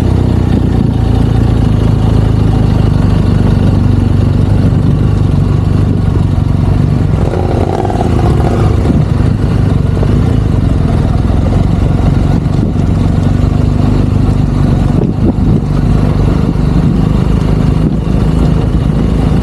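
Adventure motorcycle engine running as the bikes pull away and ride off, loud and fairly steady, with a brief rise in pitch about eight seconds in.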